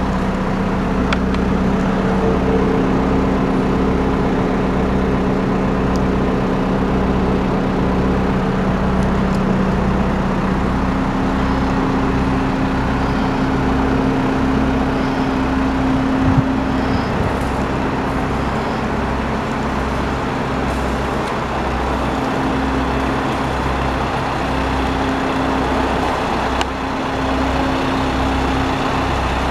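Isuzu 4HE1-TC 4.8-litre four-cylinder turbo diesel of a GMC W5500 box truck idling steadily, with a steady hum and a low throb pulsing a little more than once a second.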